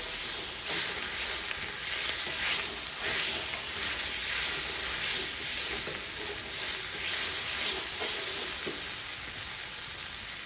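Tomato paste sizzling in hot oil in a steel pan while it is roasted, with a wooden spoon stirring and scraping it around the pan in repeated strokes.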